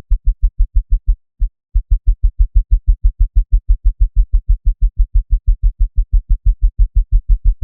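Synthesized low bounce sound effect repeated in a fast, even series of deep thumps, about six a second, with a brief break a little over a second in.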